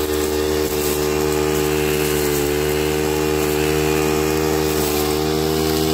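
Stihl FS 91 string trimmer's 4-MIX engine running steadily under throttle while the nylon line head cuts weeds, its pitch sagging slightly about two and a half seconds in.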